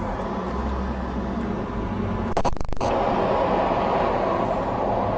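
Car engine and road noise heard from inside the cabin as the car rolls slowly forward. A brief cluster of knocks comes about two and a half seconds in, and the running noise is louder after that.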